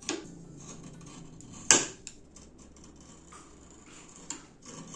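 A few sharp clicks and knocks of small hard objects, the loudest about one and a half seconds in, over a faint low hum.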